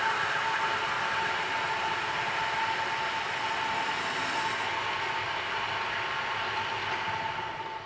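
Lathe running through a turning cut, a single-point tool taking a continuous chip off the job: a steady mechanical run with a constant whine, its high hiss fading after about four and a half seconds. Near the end the machine begins to wind down.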